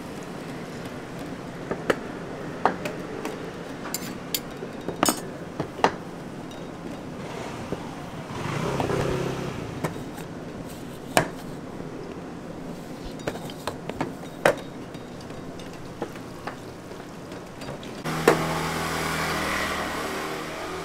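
Street-stall food preparation: scattered sharp clicks and taps of hands and utensils working dough on a steel counter over a steady background hum of traffic. Near the end a sharp knock is followed by a louder, steady engine-like hum.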